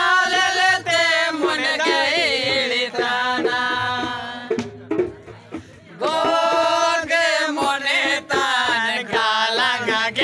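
A man's voice singing a song with music, the pitch wavering through long held notes; it drops away briefly around the middle and comes back strongly about six seconds in.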